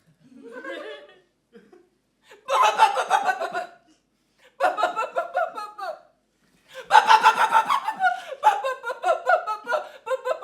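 A person laughing in several bursts: a faint one near the start, then louder fits, the last breaking into quick repeated laughs.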